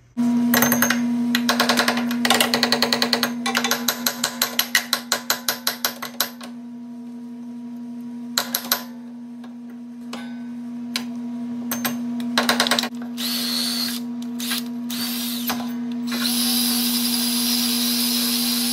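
Tool work on a lawn tractor's engine drive pulley, with rapid clicking taps in the first few seconds and again in short bursts, over a steady low hum. Near the end a cordless drill spins a wire brush against the steel pulley shaft, a steady hissing scrub, cleaning up hammer damage.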